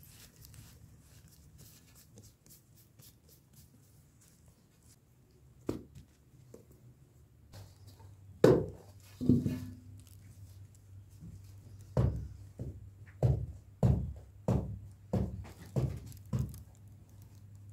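Balls of dough being handled in a large metal bowl of flour: soft, dull thumps, a few scattered at first, then a run of about eight, a little under two a second, in the last six seconds. One knock makes the metal bowl ring briefly.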